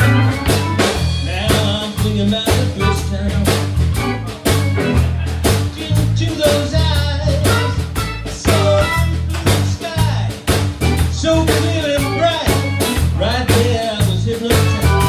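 Live band playing a song on electric guitar, electric bass, drum kit and electric keyboard, with a steady drum beat and a repeating bass line.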